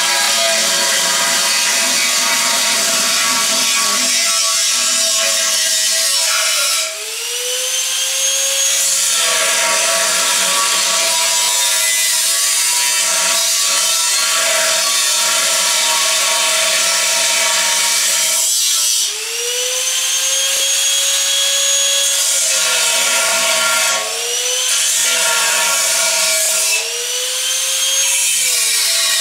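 Angle grinder grinding the cut edge of a steel gas tank: a loud, steady grinding hiss over the motor's whine. Four times the whine rises in pitch and then sinks again as the disc eases off the steel and bites back in.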